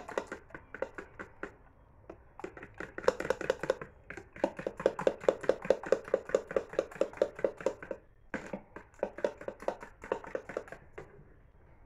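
Egg mixture being beaten by hand with a metal utensil in a plastic tub: quick, even clicking and sloshing strokes, about five a second, with a few short pauses.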